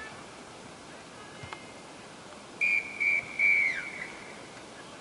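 Referee's whistle blown three times in quick succession: two short blasts, then a longer one that drops in pitch as it ends.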